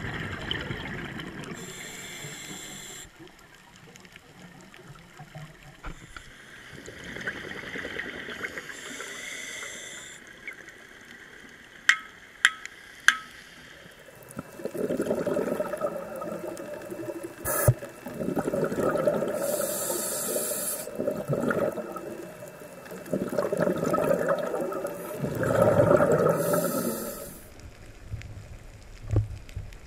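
Underwater sound from a diver's camera: rushing surges of scuba exhaust bubbles every few seconds, with a few sharp clicks shortly before.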